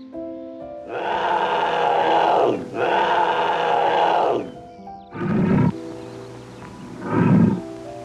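Big cat calls over background music: two long, loud calls in a row, then two shorter, deeper calls a couple of seconds apart.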